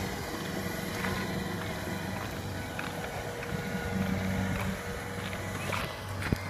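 Kubota DC70 combine harvester's diesel engine running steadily as the machine drives on, with one sharp click near the end.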